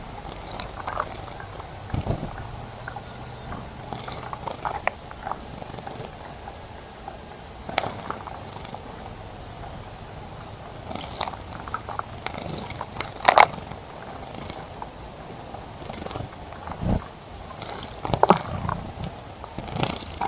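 Birds at a bird bath: scattered short splashes and flutters, with brief high chirps, over a steady outdoor background hiss.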